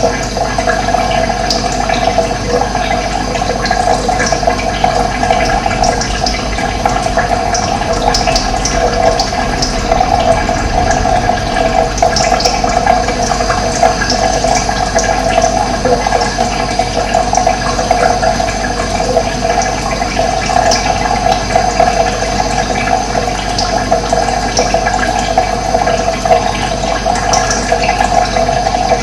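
Running water rushing steadily, with scattered brief high bird chirps over it.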